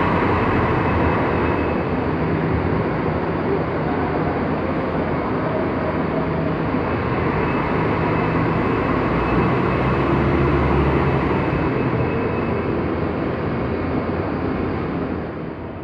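City buses' engines running as they pull away and manoeuvre through a bus terminal, over a steady wash of traffic noise, dropping a little near the end.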